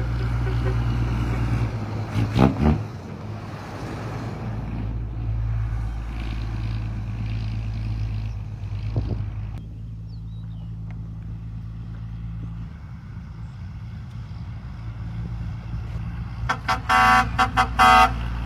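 An engine runs steadily with a low hum, and a vehicle horn sounds a string of about five short, loud toots near the end, after a shorter loud burst about two seconds in.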